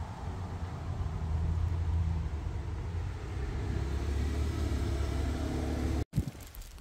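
Low engine rumble with a steady hum, swelling slightly and holding, then cut off abruptly about six seconds in.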